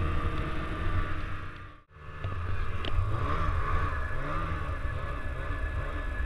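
Snowmobile engine running, dropping out for an instant about two seconds in, then revving up and down several times in quick succession.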